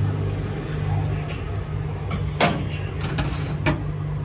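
A steady low hum, with metal cooking utensils clinking sharply twice, about halfway through and again near the end.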